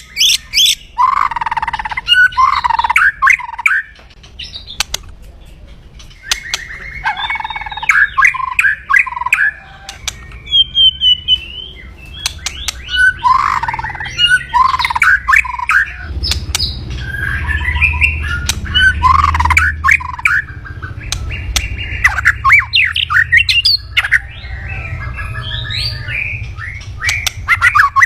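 White-rumped shama (murai batu) giving its harsh, crackling 'kretekan' call in repeated bursts with short pauses, an aggressive call used to rouse a rival's fighting mood. A low hum lies underneath, stronger in the second half.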